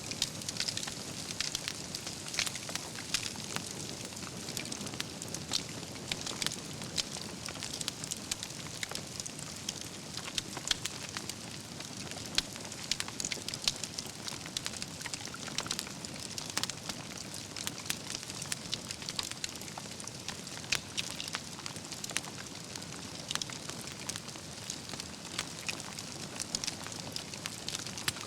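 Wood campfire burning, with a steady low rush of flame under frequent, irregular crackles and pops from the logs.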